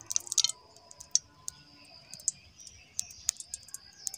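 Ghee and oil heating in a wok: a faint steady sizzle with scattered sharp crackles and pops at uneven intervals.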